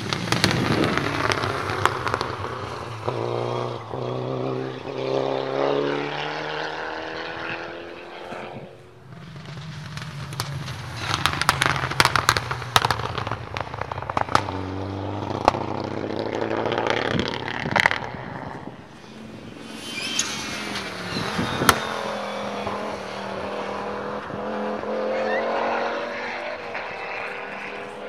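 Three rally cars, among them a Subaru Impreza and a Mitsubishi Lancer Evolution, pass one after another on a snowy stage. Each engine revs hard and shifts through the gears with sharp cracks and pops, then fades away before the next car arrives.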